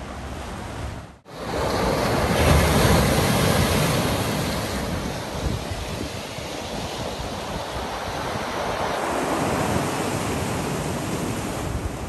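Surf washing and breaking against a rocky shore, with wind buffeting the microphone. The sound cuts out for a moment about a second in, then comes back louder.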